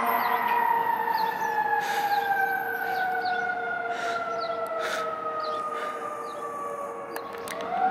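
Fire engine's siren, its pitch falling slowly and steadily, then starting to rise again near the end.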